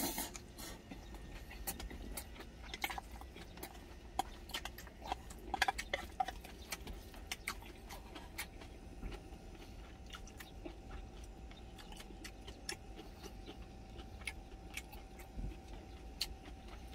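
Close-up eating sounds: chewing, with many short clicks and taps of chopsticks and a spoon against a stainless steel bowl, thickest in the first half. A low steady hum lies underneath.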